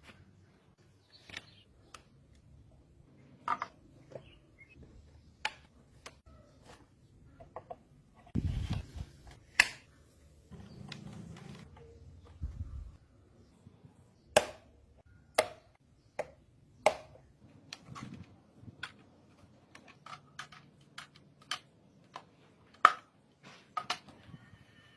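Irregular sharp clicks and light knocks of hard plastic parts being handled and fitted together, with a short low rumble partway through.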